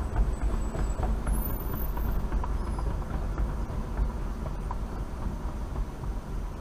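Steady low rumble of road and engine noise inside a car's cabin while it drives along a street.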